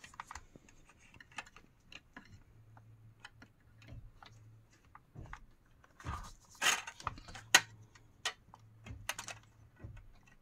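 Small plastic clicks and ticks as the instrument cluster's plastic reflector pieces are unclipped and handled, with a brief scrape about six seconds in and one sharp snap about a second later.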